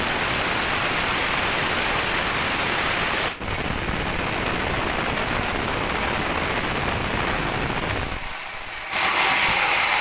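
Band sawmill running, its blade sawing through a teak log with a steady, noisy hiss, broken briefly about three seconds in.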